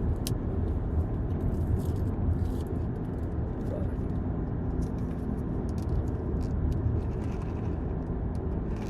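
Car running, heard from inside the cabin: a steady low rumble, with a few small clicks and handling noises over it.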